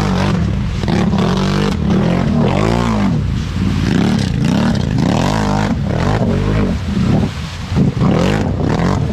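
ATV engine revving up and down repeatedly as the quad churns through a deep mud hole, with mud and water splashing around it.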